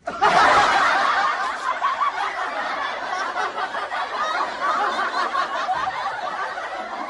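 Audience laughter, many voices laughing together: it starts suddenly at full strength and slowly dies down.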